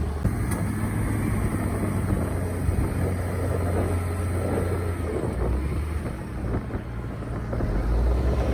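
Diesel engine of heavy earthmoving equipment running under steady load with a deep hum. It eases off for a moment about two-thirds of the way through, then picks up again near the end.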